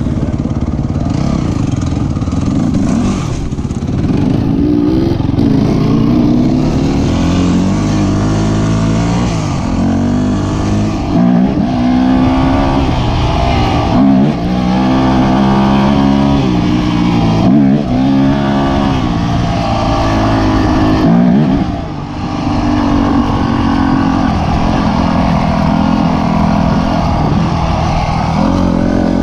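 Dirt bike engine being ridden, its pitch rising and falling over and over as the throttle opens and closes, with short drops in revs every few seconds.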